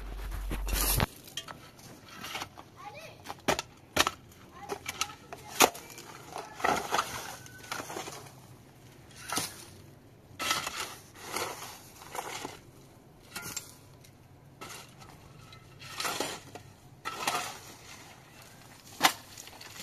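Steel shovels digging into stony soil and rubble: repeated scraping and crunching strokes, about one every second or so, with a few sharp knocks of the blade on stones.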